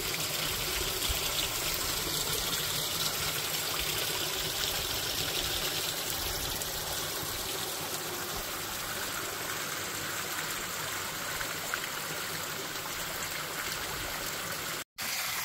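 Creek water running and trickling over granite boulders and stones in a steady, even rush. It cuts out for an instant near the end.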